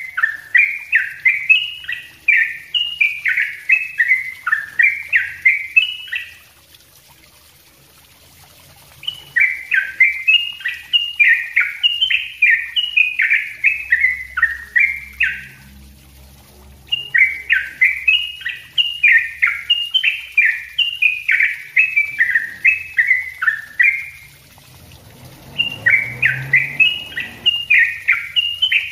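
Caged yellow-vented bulbul (trucukan) singing its dense, rapid song: quick strings of falling notes in four runs of several seconds, with short pauses between them.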